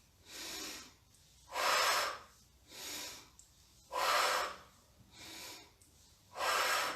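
A woman breathing deeply and audibly through a lung-opening breathing exercise. There are three cycles of a loud, hissing breath followed by a softer one, about one breath every 1.2 seconds.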